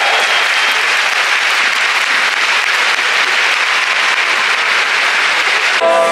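A large stadium crowd applauding loudly and steadily, greeting a player's name in the lineup announcement. Near the end, guitar music suddenly starts over it.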